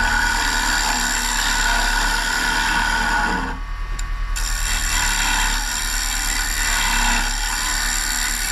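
Wood lathe running with a carbide turning tool cutting a spinning maple bowl blank: a steady motor hum under a rough scraping cut. The cutting noise breaks off for about a second some three and a half seconds in, as the tool comes off the wood, then resumes.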